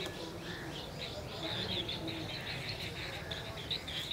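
Asian green bee-eaters calling: a steady run of short, high, trilling notes repeated many times a second, over a low background rumble.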